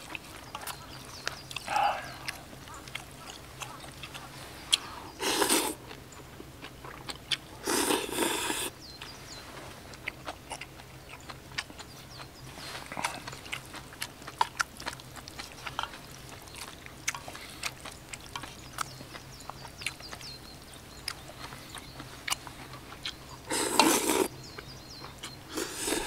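Close-miked eating: doenjang noodle soup slurped in loud bursts about five, eight and twenty-four seconds in, with chewing and small clicks in between.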